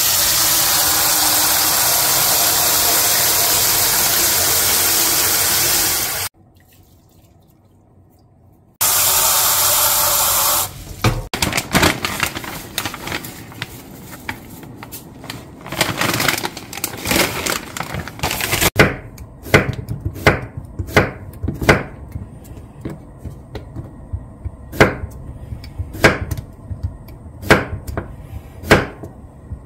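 Tap water gushing into a nonstick frying pan for about six seconds, stopping briefly, then running again for about two seconds. Next comes rustling and crinkling as a packaged stock sachet is handled. From about two-thirds of the way in, a kitchen knife slices a zucchini on a wooden cutting board, its blade knocking on the board one or two times a second.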